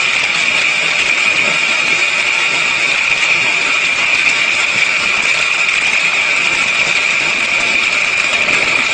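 Corn-shelling machine running steadily: a constant mechanical whir with a strong high whine that holds an even level throughout.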